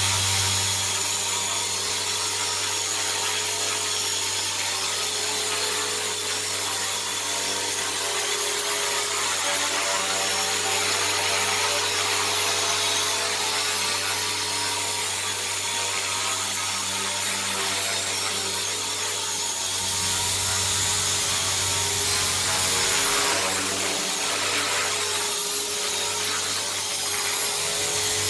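WLtoys V950 brushless flybarless RC helicopter in flight: the electric motor whines steadily and the rotor blades whir, growing a little louder and rougher about twenty seconds in.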